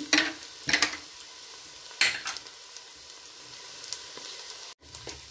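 Sliced onions sizzling steadily in hot oil and ghee in a heavy-bottomed pot, being fried until golden. A few sharp scrapes of a wooden spatula stirring them come near the start and at about two seconds.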